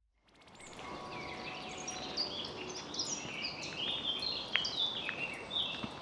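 Woodland birds singing: a dense run of quick, high chirps and warbled phrases over a steady background hiss of the wet forest. The sound fades in from silence in the first half-second.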